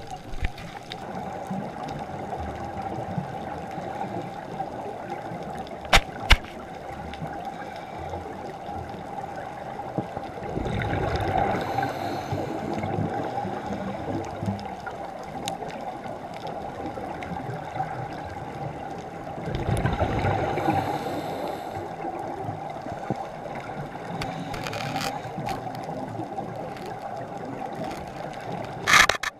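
Scuba diver's exhaled regulator bubbles gurgling twice, about nine seconds apart, over a steady muffled hum, heard underwater; a couple of sharp clicks come about six seconds in.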